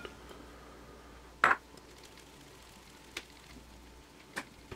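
Fine-mesh metal sieve being tapped while sifting powdered sugar, clinking against the rim of a mixing bowl: one sharp clink with a short ring about a second and a half in, then two lighter taps.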